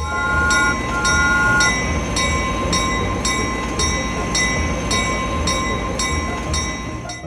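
A two-note horn sounds two short blasts. Then comes a steady loud rumble with a rhythmic clatter and a high chime repeating about twice a second.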